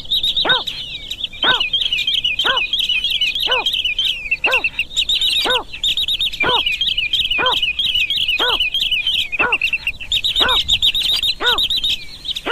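Recorded bird calls: a low hooting note, falling slightly in pitch, repeated about once a second (the greater painted-snipe's call), over dense, unbroken high twittering chirps from sandpipers.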